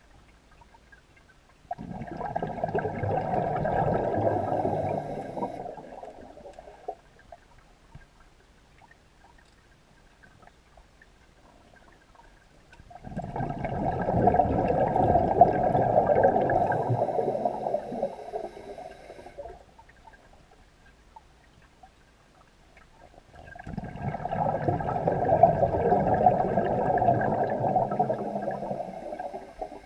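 Scuba diver's exhaled breath bubbling out of the regulator, heard underwater: three long bubbling exhalations about ten seconds apart, each lasting five or six seconds, with quiet between them while he breathes in.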